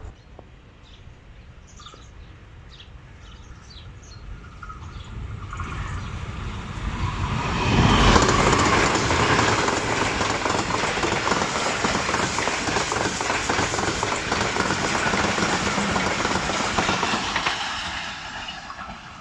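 A ZCU-20 diesel-electric locomotive hauling the Tezgam Express passenger train runs through a station at speed without stopping. It grows louder as it approaches and is loudest about eight seconds in as the locomotive passes. The coaches' wheels on the rails keep up a steady loud rumble until the train fades away near the end.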